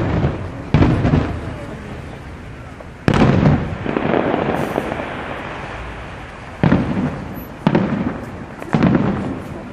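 Aerial fireworks shells bursting: five sharp booms, about one, three, six and a half, seven and a half and nine seconds in, each trailing off into a rumble.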